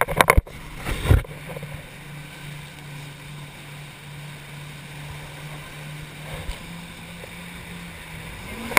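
Personal watercraft engine running with a steady low hum as the craft crosses choppy water, with a few loud water slaps in the first second or so. The engine pitch rises slightly near the end.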